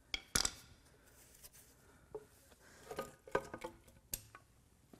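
Sharp metal clicks and knocks, the loudest two at the start and a cluster about three seconds in, as the cast aluminium timing cover is worked free of a Subaru FA20 boxer engine and lifted away.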